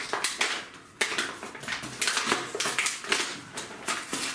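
Cardboard toy packaging being handled and pulled at: irregular crinkles, scrapes and clicks.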